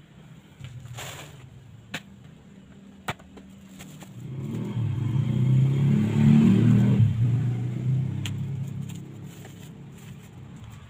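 A motor vehicle engine passes by, a low rumble that swells over a few seconds and fades again. Before it come a couple of sharp knocks and light scraping.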